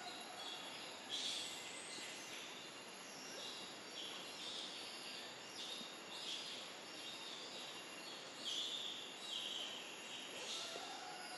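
Forest background hiss with a bird repeatedly giving short, high-pitched calls, each about half a second, at irregular intervals of one to two seconds.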